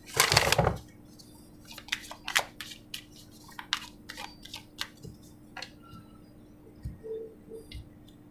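Oracle card deck being shuffled by hand: a quick riffle of the cards at the start, then a string of light card snaps and taps as the deck is shuffled overhand and a card is drawn and set down.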